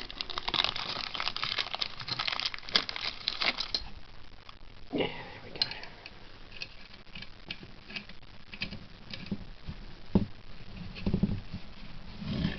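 Plastic packaging crinkling steadily while parts are handled for the first few seconds, then giving way to scattered small clicks and knocks of plastic parts being fitted together.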